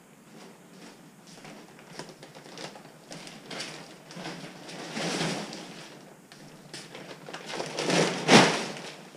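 Plastic wrapping on packs of hemp wool insulation rustling and crackling as the packs are lifted and shifted, building up irregularly to its loudest crackle about eight seconds in.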